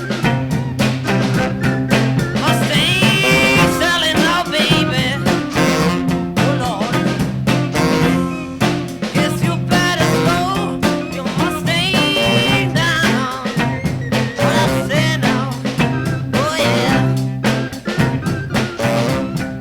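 A 1960s beat band playing a song with a steady beat: drums, bass guitar, electric guitar, organ and saxophone, recorded in one take without added reverb.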